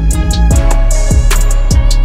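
Background music with a steady beat: drum-machine kicks about twice a second over sustained synth tones.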